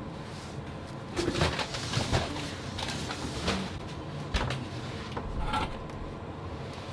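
Scattered light knocks and clicks of things being handled in a kitchen, several over the first few seconds and a small cluster about five and a half seconds in, over a faint steady background.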